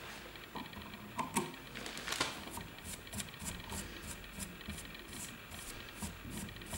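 Small scissors snipping through spun, packed deer hair, trimming a fly body: a run of quick crisp snips, about three a second.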